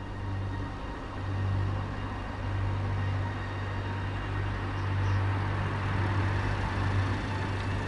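A car approaching slowly, its engine and tyre noise growing louder over a low steady hum.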